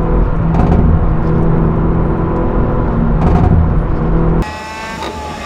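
Hyundai Veloster N's turbocharged 2.0-litre four-cylinder engine running steadily at highway speed, heard from inside the cabin, with two short crackles of popping exhaust, about half a second in and again about three seconds in. Near the end the engine sound drops suddenly to a quieter drone.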